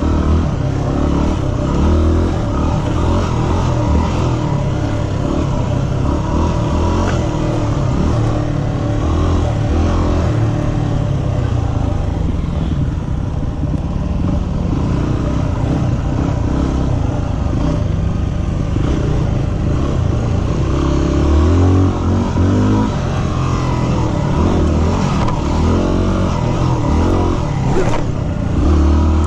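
Yamaha WR250R's single-cylinder four-stroke engine running under a rider on dirt singletrack, its revs rising and falling as the throttle is worked through the turns.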